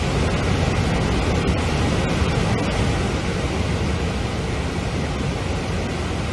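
Floodwater released through a reservoir's opened gates, rushing and churning downstream in a loud, steady rush of water.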